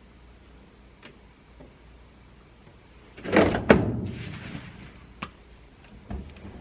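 A washing machine being shut: a loud thud about three and a half seconds in, with a few light clicks before and after.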